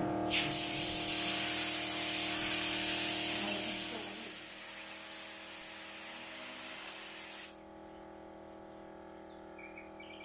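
Compressed-air paint spray gun hissing steadily as it sprays. It eases slightly about four seconds in and cuts off abruptly when the trigger is released, about seven and a half seconds in.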